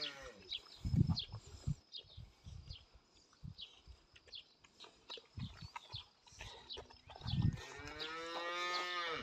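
A cow mooing: one long, drawn-out low near the end, with the tail of another call at the very start. Short low thumps and faint clicks come in between.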